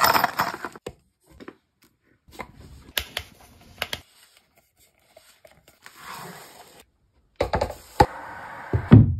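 Plastic and cardboard furniture packaging rustling and crinkling as flat-pack parts are handled, in short snatches with quiet gaps between, with a few sharp knocks and taps, the loudest near the end.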